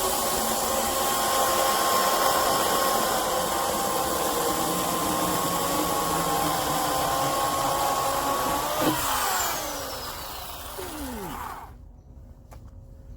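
Craftsman CMECS600 12-amp electric chainsaw running steadily with a high motor whine. About nine seconds in the motor is released and spins down with a falling pitch, stopping a few seconds later, followed by a few faint clicks.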